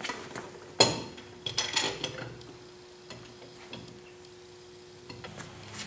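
Steel table screw of a Clausing horizontal milling machine being slid into the table end, clinking and knocking metal on metal. A sharp ringing clink comes about a second in, a quick cluster of clinks follows, then a few lighter ticks.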